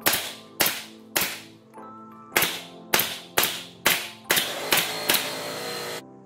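Pneumatic trim nailer firing about ten nails into a pine board, each shot a sharp crack with a short burst of exhaust air, roughly two a second with a brief pause after the third. Near the end a steady hiss of air joins the shots and cuts off suddenly.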